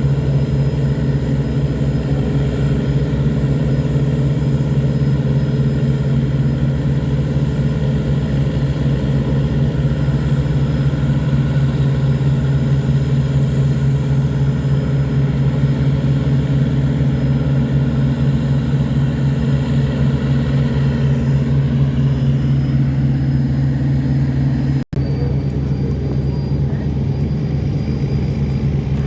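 Tugboat diesel engine running steadily under heavy load, a deep even drone, as it tows loaded cargo barges upstream against a flood current. The sound cuts out for an instant near the end and resumes.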